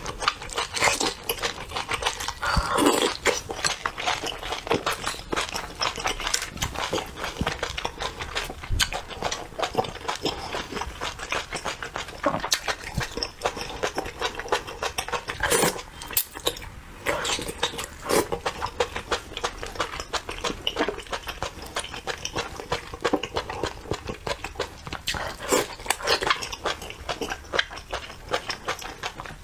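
Close-miked eating sounds: wet chewing, lip smacks and slurping as saucy food in chili oil is sucked off chopsticks, a dense crackle of short wet clicks.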